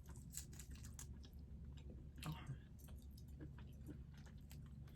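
Faint chewing and wet mouth clicks from someone eating seafood in garlic butter sauce close to the microphone, over a low steady hum.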